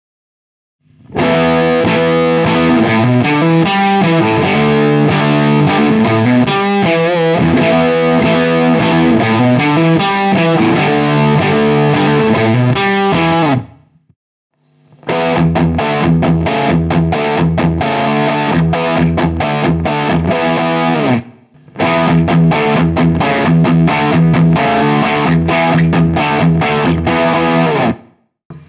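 Electric guitar played with distortion through a Laney LA30BL 30-watt single-channel tube amp with two EL34 output tubes. It plays three riff passages separated by short breaks, the first about a second in.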